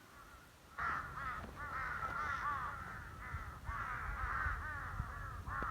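A flock of crows cawing, many harsh calls overlapping one another, beginning about a second in.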